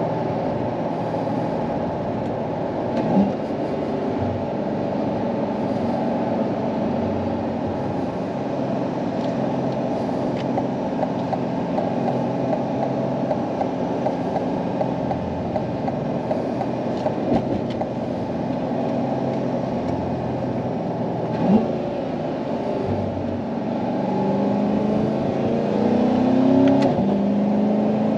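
Chevrolet Corvette C8's V8 running at a steady cruise under road and tyre noise, heard from inside the cabin; the engine note rises as the car pulls harder near the end. Two brief thumps, one a few seconds in and one about two-thirds through.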